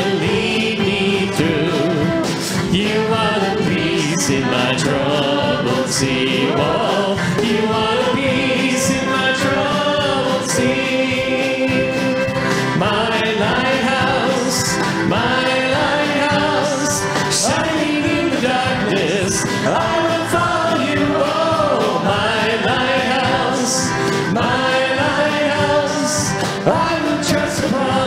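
Live contemporary worship music: a group of men and women singing together into microphones over piano, drum kit with cymbals, acoustic guitar and trumpet.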